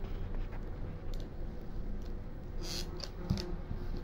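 Brief rustles and snips of scissors working a decorative adhesive sheet by hand, with a soft knock about three seconds in, over a low steady hum.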